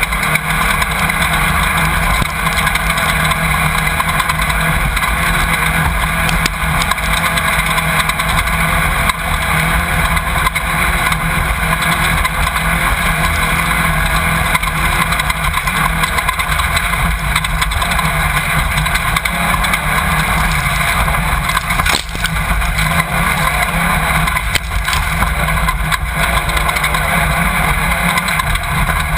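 Off-road race car's engine running hard under race load, heard loud and steady through a camera mounted on board, with road and wind noise mixed in.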